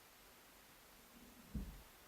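Near silence with a faint hiss, broken by a single short low thump about a second and a half in.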